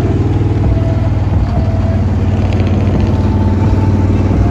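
Lifted pickup truck's engine and exhaust running close by at a low, steady pace as the truck rolls past, with a rapid, even pulsing.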